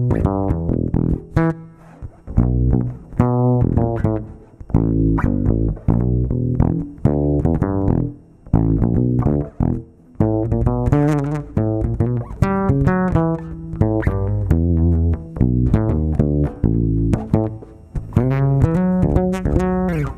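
Instrumental music of plucked, deep-pitched notes, each struck sharply and left to ring and fade, played in phrases with short pauses between them.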